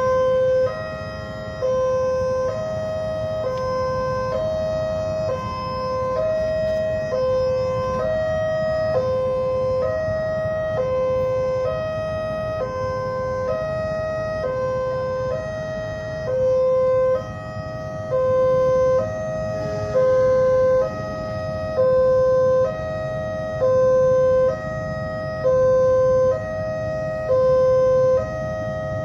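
Railway level-crossing warning alarm sounding continuously: an electronic two-tone signal that alternates between two pitches about every 0.7 s, warning that a train is approaching and the barrier is down. A low rumble runs underneath it.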